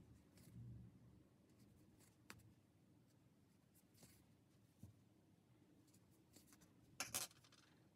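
Near silence with faint hand-handling sounds of sewing up a knitted toy: a soft low thump, a few light clicks, and a short scratchy rustle of yarn and knitted fabric about seven seconds in.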